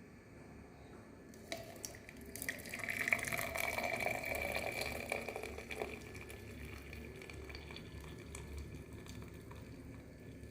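Hot kadha, a thin spiced herbal decoction, poured from the pan through a strainer into a cup. The pouring starts about a second and a half in, is loudest for a few seconds, then goes on more quietly as a thinner trickle.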